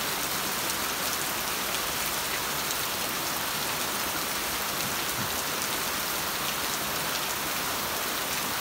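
Steady rain falling on a lawn and trees, an even hiss with no change in strength.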